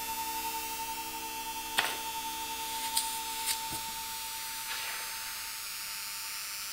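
A steady drone of several held tones, with a few light clicks and knocks; the sharpest click comes about two seconds in.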